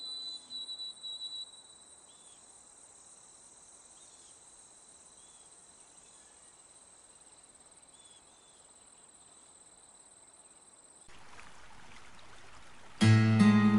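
A faint, steady, high-pitched trill like insects chirping, under the last notes of fading music. A soft hiss comes in about eleven seconds in, and louder acoustic guitar music starts near the end.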